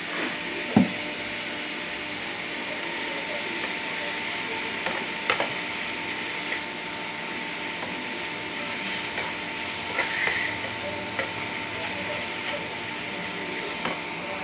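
Grated carrot sizzling in ghee in a frying pan while a spatula stirs it, knocking and scraping against the pan now and then; the loudest knock comes just under a second in.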